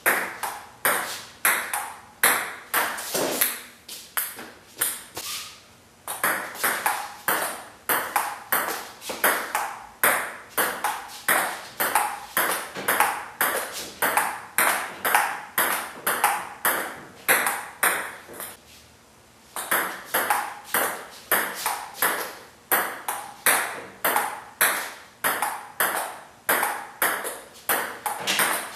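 Table tennis ball being hit back and forth in rallies, clicking sharply off the paddles and bouncing on the Stiga table at about two to three hits a second. The hitting stops for a second or so about 18 seconds in, then the rally starts again.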